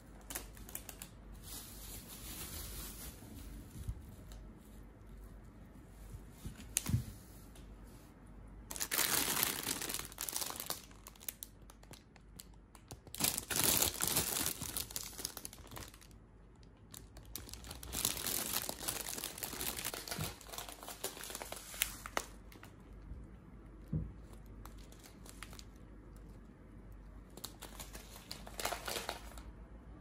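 Thin plastic produce bags crinkling in several bursts as groceries are picked up and handled, with a few light knocks of items being set down.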